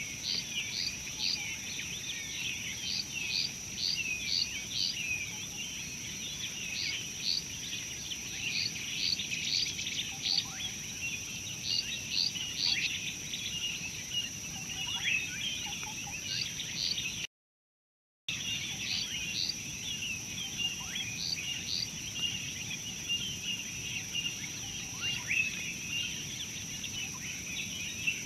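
A dense chorus of small birds chirping, short calls repeated over and over, over a steady high-pitched insect drone. About two-thirds of the way in, the sound cuts out completely for about a second.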